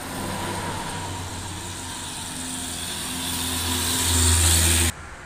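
A coach bus passes at highway speed: a low engine drone with tyre and wind rush that grows louder as it comes close, then cuts off suddenly near the end.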